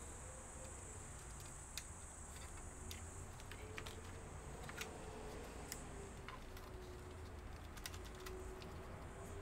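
Irregular light clicks and taps of small laptop parts being handled and fitted during reassembly, over a low steady hum.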